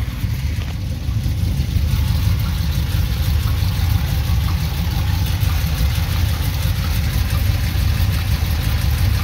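Truck engine idling, heard up close from underneath between the engine and the automatic transmission. It has the loose-sounding rattle that the owner and his mechanic take for a cracked flex plate.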